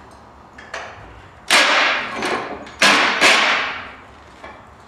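Cordless impact driver loosening the rusty front mounting bolt of a golf cart leaf spring, running in a few short bursts starting about a second and a half in.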